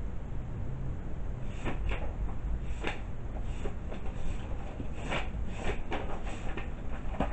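Handling noises: a string of about eight short, irregular knocks and rustles over a low, steady rumble.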